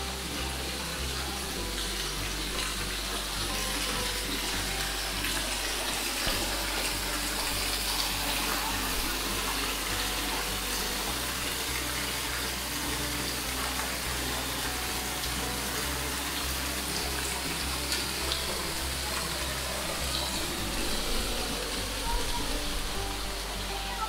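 Waterfall pouring off a rock overhang and splashing onto stone: a steady, even rush of falling water, with soft music underneath.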